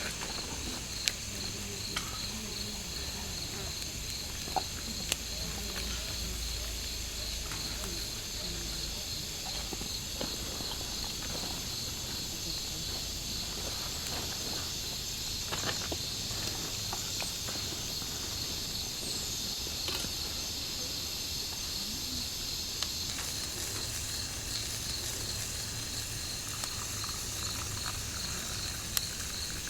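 A chorus of forest insects keeps up a steady, high-pitched shrill drone with a fine rapid pulse, and a few sharp clicks stand out above it.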